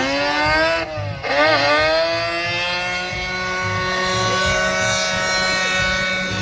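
A drift car's engine running at high revs. The pitch dips sharply about a second in, climbs back, then holds a steady high note.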